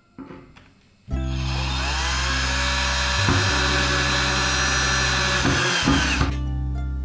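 An electric angle grinder starts about a second in with a rising whine, runs at speed for about five seconds, then winds down with a falling whine. Background music plays underneath.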